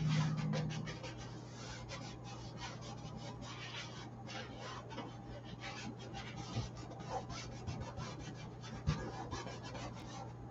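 Paintbrush bristles scratching and rubbing across the canvas in short, irregular oil-paint strokes, over a steady low hum.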